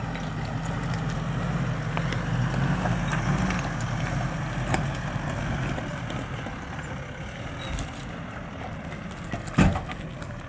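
A 4x4 driving slowly along a rough dirt track. A low engine hum fades out a few seconds in, leaving steady tyre and body noise with scattered knocks and a loud thump near the end.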